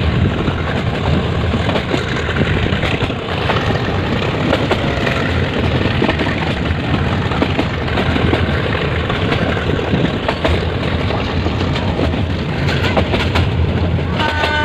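Steady running noise of a metre-gauge passenger train on the move, a dense rumble with no breaks. A train horn starts sounding right at the very end.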